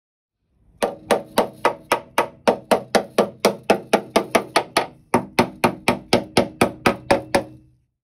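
Hammer tapping quickly on the welded-in steel repair panel of a Sunbeam car door front, about four strikes a second with a brief pause about five seconds in. Each strike gives a short, solid metallic ring, the sign that the repair panel is now one with the original door.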